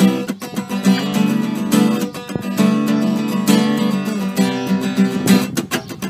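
Solo cutaway acoustic guitar played live, an instrumental mixing picked notes and chords with many sharp strummed strokes.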